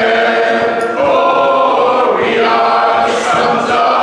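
Two women and a man singing a song a cappella in harmony, holding long notes.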